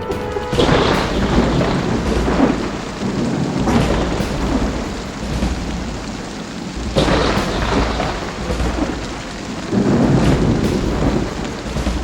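Thunder rolling over steady rain, several rumbles that swell and die away about every three seconds.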